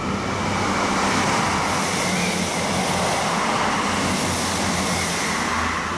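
South Western Railway Class 455 electric multiple unit moving along the platform: a steady rush of wheel and motor noise, with a faint high whine setting in about four seconds in.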